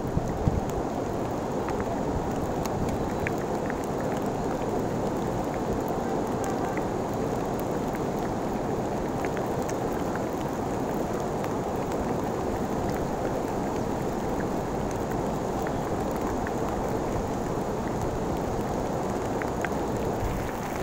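Steady rain falling, an even rushing hiss with scattered sharp drop ticks.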